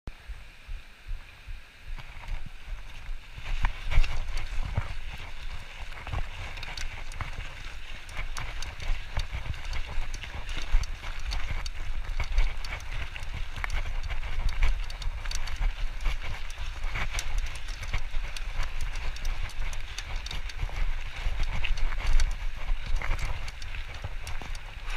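Mountain bike ridden over a gravel trail: tyres crunching on loose gravel, with frequent clicks and rattles from the bike over rough ground above a low rumble. It gets louder a few seconds in as the bike gets moving.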